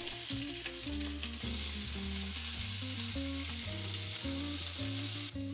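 Chopped onion, pineapple and bell peppers sizzling in a hot wok over medium-high heat as a spatula stirs them. The sizzle cuts off abruptly near the end, and soft background music with a bass line runs underneath.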